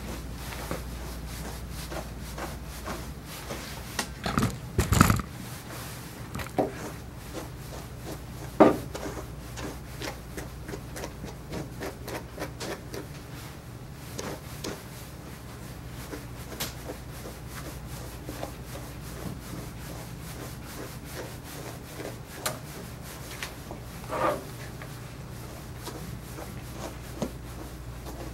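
A grooming brush drawn over and over through a dog's long coat, making repeated scratchy rubbing strokes. A few louder knocks come about five and nine seconds in, over a steady low hum.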